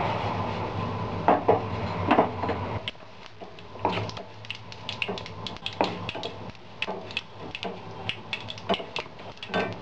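Irregular sharp pops and clicks of cumin seeds, mustard seeds, curry leaves and dry red chillies spluttering in hot oil in a nonstick frying pan, with a spatula stirring and knocking against the pan. A low hum underneath stops about three seconds in.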